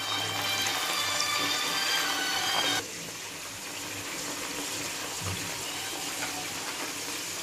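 Crab curry base sizzling in hot oil in the pan as the masala and ginger-garlic paste fry. It is louder for the first three seconds, then drops suddenly to a quieter, steady sizzle.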